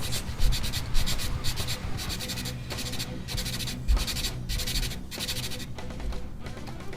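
Hand sanding with 100-grit sandpaper on a small wooden block, quick back-and-forth scratchy strokes. It is levelling hardened epoxy and abalone shell inlay flush with a guitar headstock.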